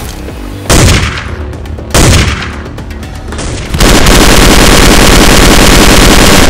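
Gunfire sound effect laid over a Nerf blaster being fired. Two loud single shots, each with a trailing echo, come a little over a second apart. From about four seconds in, a continuous burst of rapid machine-gun fire runs until it cuts off suddenly.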